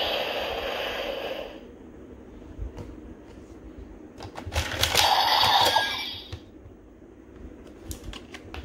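Bandai DX Zero-One Driver toy belt's speaker playing its electronic audio, which cuts off about a second and a half in. Plastic clicks follow as the belt and a Progrise Key are handled, with a short louder sound from the belt about halfway through.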